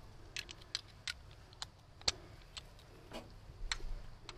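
Faint, scattered light metal clicks from a socket and ratchet wrench being handled, with the socket swapped and fitted onto the alternator mounting bolt; a few quicker clicks come near the end.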